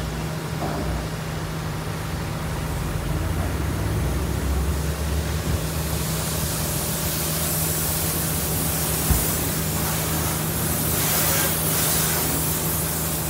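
Steady low hum of a truck engine running, with a rushing noise that grows stronger in the second half and one sharp knock about nine seconds in.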